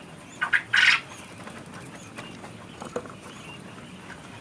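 Two short rustling scrapes about half a second to a second in, then a single sharp click near three seconds: handling and scuffling at a wooden quail cage.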